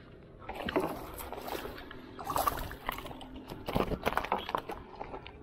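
A small fish being pulled from the water and landed in a small canoe: irregular splashes, knocks and rattles of fish, line and rod against the boat, starting about half a second in and dying down near the end.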